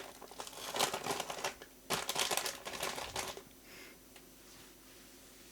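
Crinkling, rustling handling noise of packaging being moved about, with many small clicks, in two spells of about a second and a half each. It dies away to quiet room tone a little after three seconds in.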